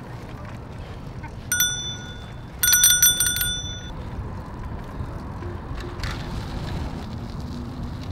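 Bicycle bell on an Ofo bike-share bike, rung once about a second and a half in, then rung rapidly several times for about a second. A low steady rumble runs underneath.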